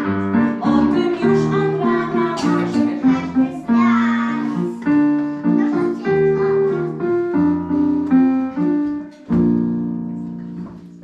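Young children singing a song to keyboard accompaniment. The singing stops about halfway, and the keyboard plays on alone to a final chord that fades away near the end.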